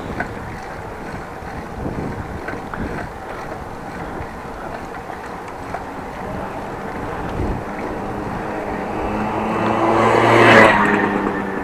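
Wind noise on the microphone during a bicycle ride, with a motor vehicle coming up and passing close by. Its engine hum grows louder over several seconds, peaks about ten and a half seconds in, then starts to fade.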